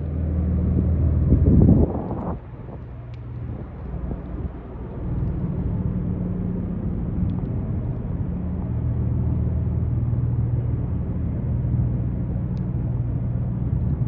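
Street traffic: a motor vehicle's low engine hum swells to a peak just under two seconds in and drops away sharply, then another steady low engine hum comes in from about five seconds on.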